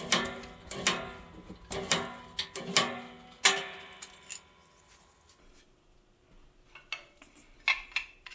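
Mitre cutter blades chopping wooden picture-frame molding: a series of sharp clunks with a short metallic ring, about one a second, then a few lighter clicks near the end as the pieces are handled.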